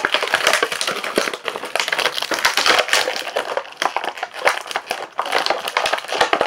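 Plastic packaging being handled and crumpled: continuous crinkling and crackling with many sharp little clicks.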